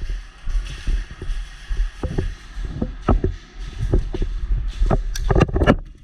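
Irregular knocks and clatter over a low rumble of movement and microphone handling. A quick cluster of louder, sharper cracks comes near the end.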